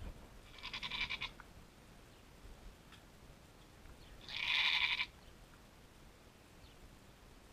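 A doe goat in labor bleating twice, about four seconds apart, the second call louder.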